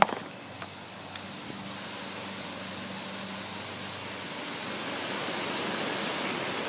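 Part-circle rotating sprinkler head spraying water in a steady hiss that grows slightly louder over the last few seconds. There is a sharp click right at the start.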